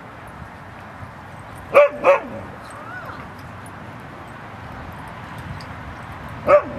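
Dog barking: two short barks in quick succession about two seconds in and a single bark near the end, with a faint brief whine in between.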